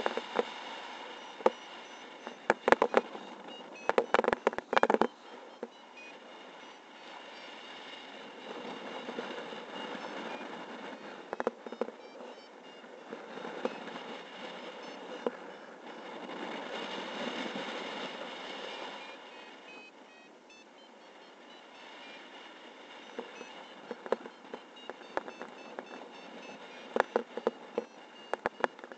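Wind rushing over the microphone of a paraglider's harness-mounted camera in flight, swelling and easing in gusts. Bursts of sharp crackling buffeting come in the first few seconds and again near the end, with faint short high beeps in the background.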